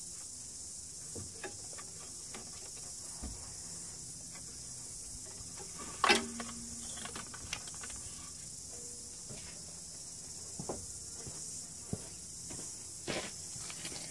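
Scattered light clicks and knocks of hands working among the wiring and plastic under the front of a side-by-side, with one louder clunk about six seconds in, over a steady high hiss.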